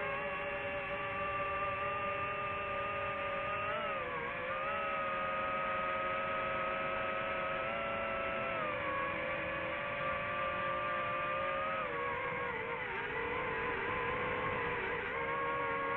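DJI FPV drone's motors and propellers whining steadily as heard from the drone itself. The pitch shifts up and down with throttle changes about four, eight and twelve seconds in, and wavers near the end.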